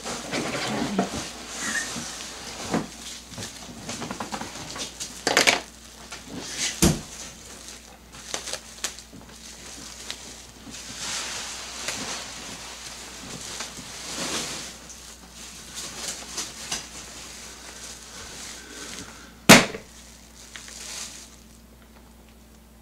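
Clear plastic wrapping rustling and crinkling in bursts as it is pulled off a large doll, with a few knocks and one sharp clack near the end.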